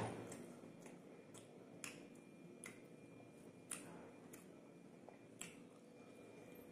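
Faint, irregular sharp clicks and smacks of eating rice and beef curry by hand: chewing and lip smacks, with the wet squish of fingers in the rice.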